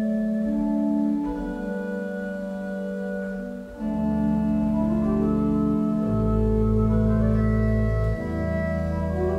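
A 1913 Heinrich Schiffner pipe organ playing slow, held chords. Deep bass notes come in about four seconds in and sound under the chords, with a higher line rising near the end.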